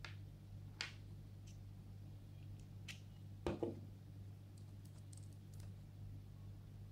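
Faint clicks of small steel screwdriver bits and the precision bit adapter being handled, a bit pulled out and pushed back into the adapter, with a double click about three and a half seconds in the loudest.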